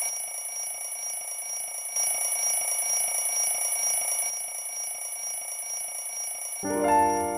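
Cartoon alarm clock ringing continuously with a fast, rapid-fire ring, a little louder from about two seconds in. Near the end a tinkling melody of music comes in over it.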